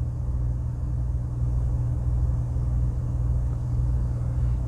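Steady low hum and rumble of background room noise, with no distinct event.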